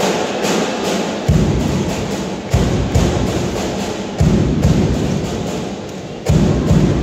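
Cheering percussion in the gym: a drum beating a rough rhythm of deep thumps, with faster, lighter clicks over it, echoing in the large hall.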